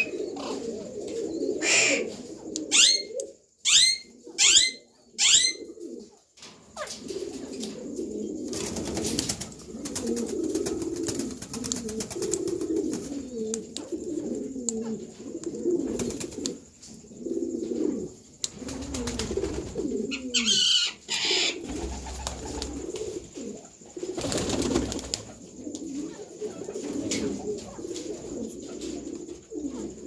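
Domestic pigeons cooing steadily. Over them, a run of about five short, sharp, falling parakeet calls comes a few seconds in, and a brief harsher call follows about two-thirds of the way through.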